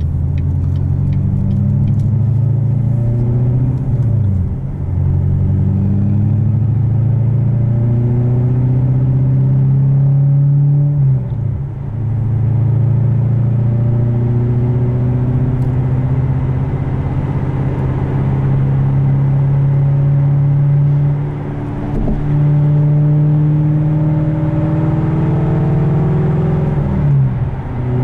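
A 2015 Corvette C7 Stingray's 6.2-litre LT1 V8, fitted with headers, a cam and a muffler-less exhaust, heard from inside the cabin as the car accelerates through the gears of its manual gearbox. The engine note climbs in pitch, then falls at each of four upshifts.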